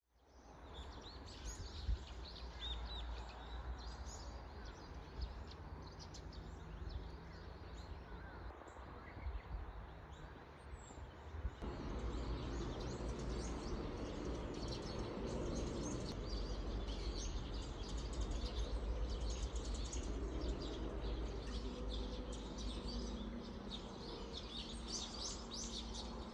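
Outdoor ambience of small birds chirping and twittering over a steady low rumble; the ambience grows louder about twelve seconds in.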